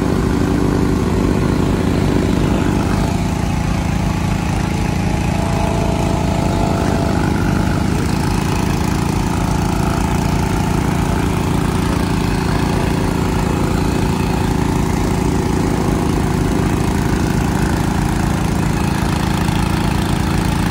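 Small single-cylinder gasoline engine of a portable transfer pump running steadily, pumping spray mix through a hose into a crop-duster's hopper.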